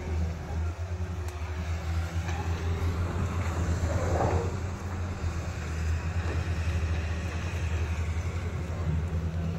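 A steady low engine-like hum, as of a motor vehicle or machine running, with a brief swell about four seconds in.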